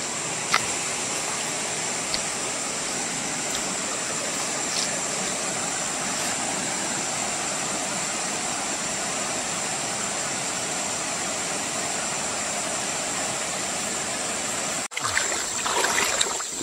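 Steady rush of river water flowing over a rocky bed, with a sharp click about half a second in and another faint one about two seconds in. The sound breaks off abruptly about fifteen seconds in and the water noise resumes.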